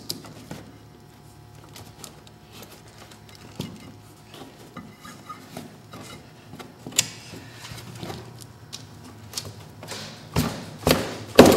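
Hand-handling of a snowmobile's toothed CVT drive belt as it is worked off the metal clutch sheaves: scattered light clicks and knocks, with a few louder knocks near the end as the belt is pulled clear.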